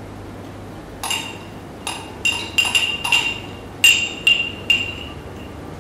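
Metal spoon clinking against a glass jar as thick paste is scraped out into a bowl: about nine quick ringing taps, all at the same high pitch, starting about a second in and stopping about a second before the end.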